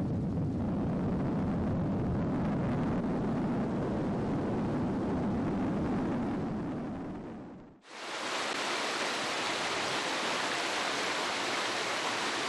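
A steady, low rushing noise that fades out about eight seconds in. Then a sudden cut to the brighter, even rush of fast-flowing floodwater.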